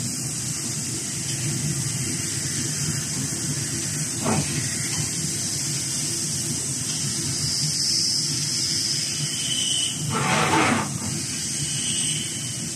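CNC deburring machine's spindle running steadily with a high hiss over a low rumble as the tool works the edges of a cast aluminium housing. Two brief louder sweeps fall in pitch, a short one about four seconds in and a longer, fuller one near the end.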